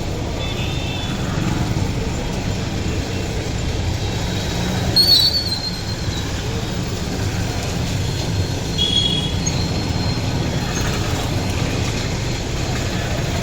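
Road traffic in heavy rain: a steady low rumble of vehicles on a wet road with rain hiss, a brief high squeal about five seconds in, and a few short, faint high tones.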